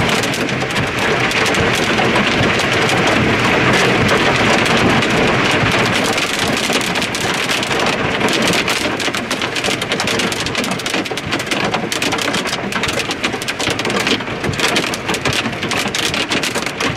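Nickel- to quarter-size hail and rain pelting down in strong wind. A dense, loud hiss is dotted with many sharp hail impacts, which grow thicker and more distinct from about eight seconds in.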